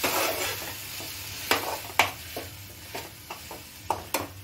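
A metal spoon stirring and scraping frying onion paste and tomato puree in a steel frying pan, with sharp clinks of spoon on pan every half second or so. Soft sizzling runs underneath, loudest in the first half second.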